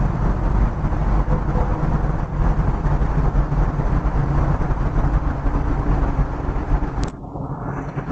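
Loud, steady rumbling noise that drops away abruptly about seven seconds in.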